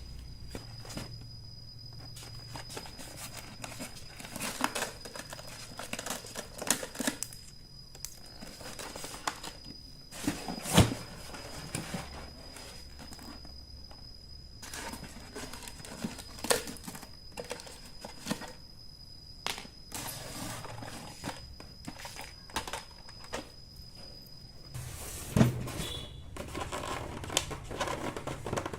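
Packaging being handled and opened: plastic and cardboard crinkling and tearing, with irregular clicks and knocks and one sharper knock about eleven seconds in.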